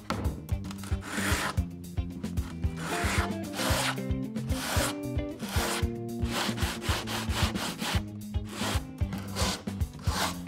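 Sandpaper on a hand sanding block rasping over an old wooden board, in repeated back-and-forth strokes, with background music underneath.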